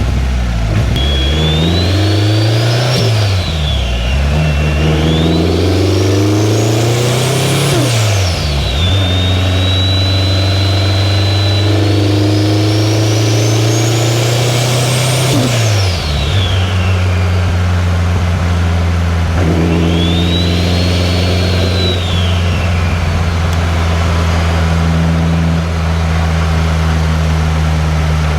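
2003 Subaru WRX's turbocharged flat-four engine and exhaust under way: the revs climb and drop three times in the first half, with a high whine rising and falling along with them, then the engine holds a steady cruise with one brief swell about two-thirds through.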